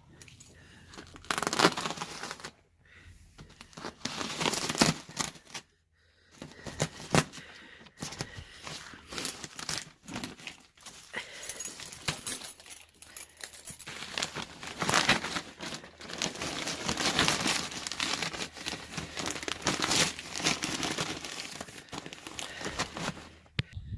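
Crinkling and rustling of a plastic bag of wood shavings being torn open and the shavings poured out and spread as stall bedding, in an irregular run of crackly noise.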